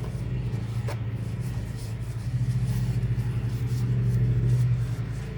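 Steady low mechanical hum, like an engine or motor running nearby, growing louder in the middle and easing off near the end, with a faint click about a second in.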